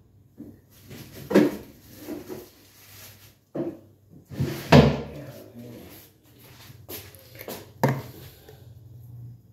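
Kitchen clatter: several sharp knocks and bangs with handling noise between them, the loudest about five seconds in.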